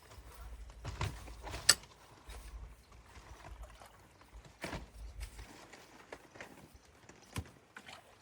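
Irregular knocks and clicks from debris being pulled out of a clogged culvert, the sharpest about a second and a half in, over an intermittent low rumble.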